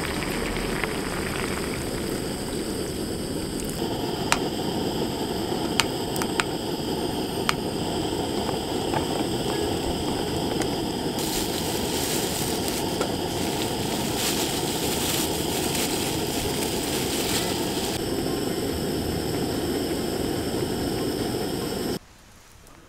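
Gas camp stove burner running steadily with a pot on the boil, and a few light clicks now and then. The sound stops abruptly near the end.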